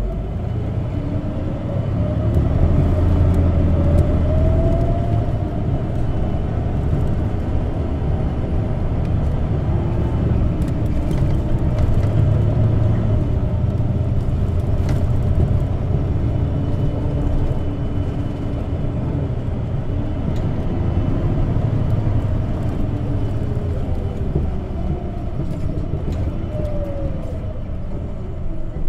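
Running sound inside the cabin of an Isuzu Erga CNG (compressed natural gas) city bus, PDG-LV234N2 modified: a deep, steady engine and road rumble that grows louder about two seconds in. A faint whine rises in pitch briefly, and another falls near the end.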